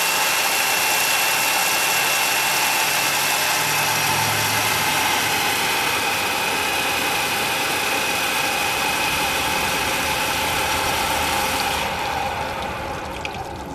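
3D-printed Pelton turbine spinning free under two water jets, water spraying in its housing with a steady whine from the wheel and its 12-volt motor generator, running with no electrical load. The sound starts to fade near the end.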